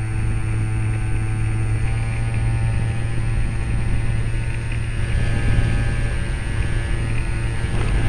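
Remote-control model plane's motor and propeller running steadily, heard from a camera mounted on the plane itself: a loud, even drone with a slight shift in pitch, over a rushing noise.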